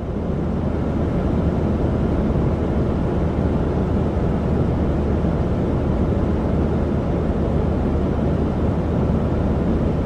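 A white-noise recording of the kind used for relaxation, playing as a steady, even rushing noise. It is weighted toward the low end, with a low hum beneath, and is more rumbling than hissy, somewhat like an aircraft cabin.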